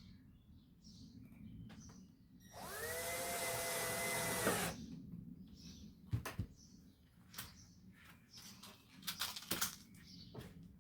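Cordless drill spinning up and running steadily for about two seconds, then stopping, at the holding-screw hole in a landing net's support frame. Several light clicks and knocks of handling follow.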